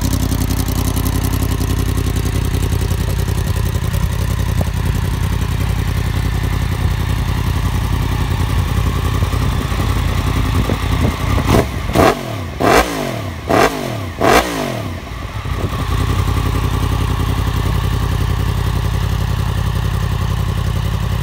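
Yamaha MT-10's crossplane inline-four engine idling steadily through a de-cat link pipe, with a run of quick, sharp throttle blips about twelve seconds in, each revving up and falling straight back to idle.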